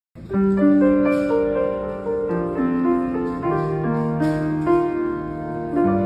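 Grand piano played by hand: a slow melody over sustained bass notes and chords, the notes ringing on.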